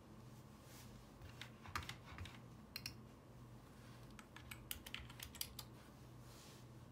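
Light, sharp clicks in two short bursts, one about a second and a half in and one about four seconds in, over a faint steady hum.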